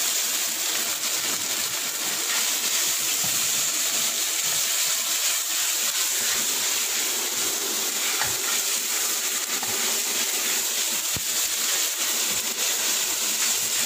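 Thin strips of beef sizzling in a hot wok as they are stirred and separated with a spatula, a steady hiss with a few light knocks of the spatula; the meat is just starting to change colour.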